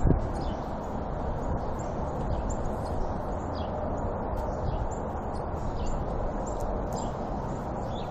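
A steady low rumbling drone, with small birds chirping over it in short, repeated, falling notes.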